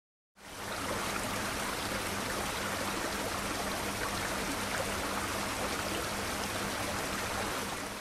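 Steady rush of water, a sea sound effect, fading in just after the start and fading out at the end, with a faint low hum beneath it.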